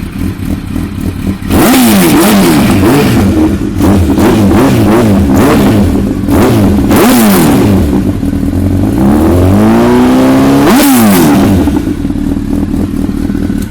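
2007 Honda CBR1000RR's inline-four engine through a full Akrapovič exhaust, idling, then revved again and again with the revs rising and falling. It settles back to idle about two seconds before the end.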